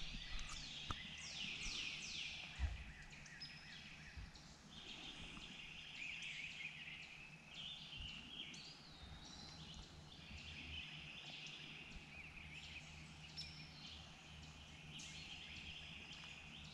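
Songbirds singing and calling in the trees, with quick falling whistles in the first couple of seconds, then chattering phrases on and off, over faint river ambience. A couple of soft thumps in the first three seconds.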